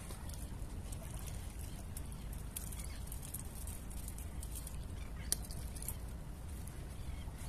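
Small waves lapping and crackling against shoreline rocks over a steady low rumble of wind, with one sharp click about five seconds in.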